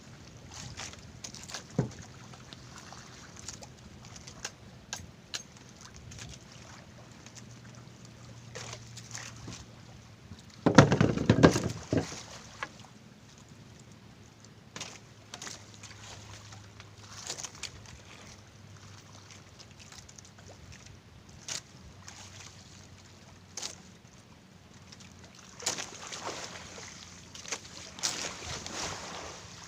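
Small fishing boat on the sea: water sloshing against the hull with scattered knocks and clicks, over a faint steady low hum. One loud, low thump about eleven seconds in, and rougher gusty noise near the end.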